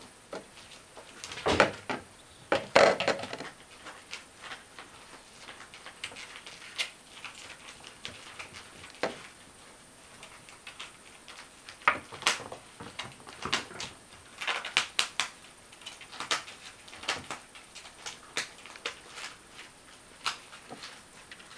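Kittens pawing and clambering at a plastic bowl on a wooden floor: scattered clicks, knocks and scrapes of paws and claws on the plastic and the boards. There is a louder flurry of knocks about two to three seconds in, and another run from about twelve to seventeen seconds.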